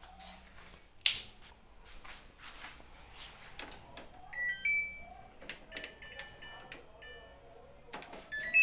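Handling knocks with a sharp click about a second in, then the Samsung washer dryer's control panel beeping: a pair of rising beeps about four seconds in, a quick run of tones soon after, and louder beeps near the end.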